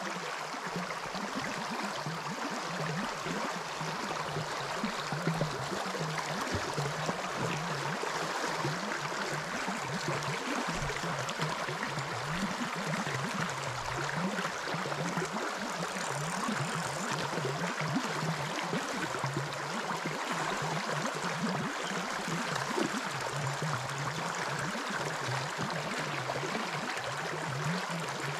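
Creek water rushing and gurgling steadily over shallow riffles.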